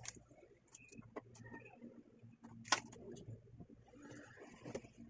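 Faint background: a low steady hum with a few sharp clicks, the loudest a little past halfway.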